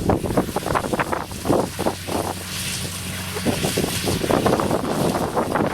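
Kubota DC60 combine harvester running with a steady mechanical hum, heavily buffeted by wind on the microphone. The steady hum drops away a little over halfway through, leaving the wind rumble.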